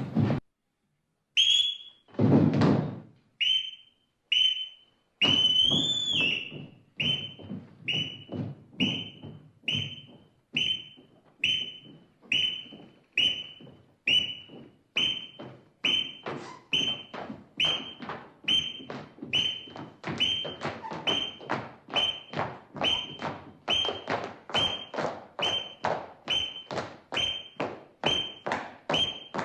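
Short whistle toots in a steady rhythm, each with a thump, about two a second, a little faster in the second half; one longer toot with a rising bend about six seconds in.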